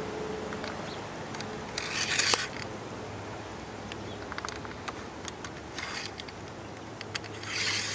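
Hand-fitting work at the end of an aluminium aero roof bar: short rasping scrapes of plastic and metal rubbing, with small clicks between them. The loudest scrape comes about two seconds in, a shorter one near six seconds, and another just before the end.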